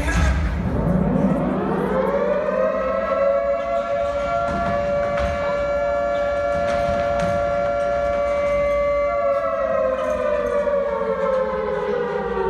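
Air-raid siren sound played over a hall's loudspeakers: it winds up over about two seconds, holds a steady two-note pitch, then slowly winds down over the last few seconds.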